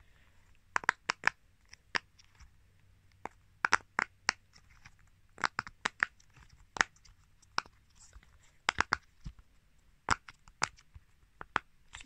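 Round silicone pop-it fidget toy, its bubbles pressed through one after another by fingers: a run of short, sharp pops, irregularly spaced and often in quick groups of two to four.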